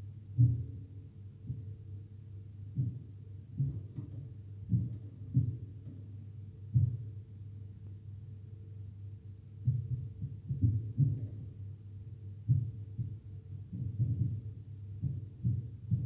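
Dull, irregular knocks of a canary pecking seed out of a plastic feeder in its wire cage, coming in quick clusters, over a steady low hum.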